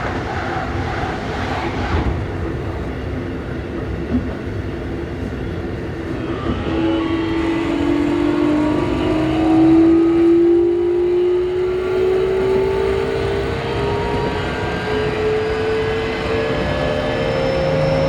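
Keikyu New 1000 series train's Toshiba IGBT-VVVF inverter and traction motors giving a whine that sets in about a third of the way through and rises slowly in pitch as the train picks up speed. Wheels on rails run underneath throughout.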